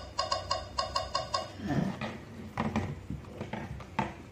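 Recorded hen clucking played through the small speaker of a Miko 2 kids' robot: a quick run of about seven evenly spaced clucks in the first second and a half, followed by looser, softer cackling sounds.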